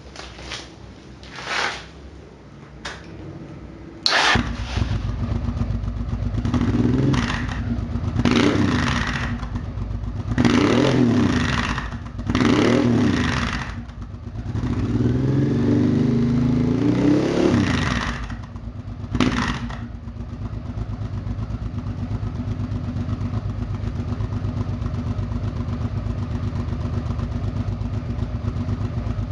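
Honda XRV 750 Africa Twin's V-twin engine, breathing through an open aftermarket exhaust with all dB-killer baffles removed. After a few short sharp noises it catches about four seconds in and is revved about six times, one rev held longer than the rest, then settles to a steady idle.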